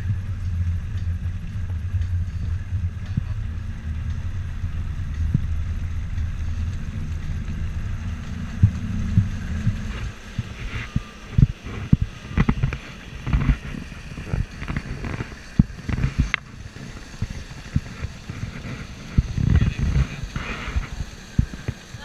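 Motorboat engine running steadily under way. About ten seconds in the steady hum gives way to irregular thumps and buffeting as the boat runs fast over choppy water.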